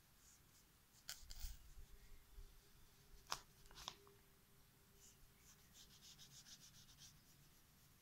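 Graphite pencil scratching faintly on paper while shading: a few separate strokes in the first half, then a run of quick, even strokes, about six a second, between about five and seven seconds in.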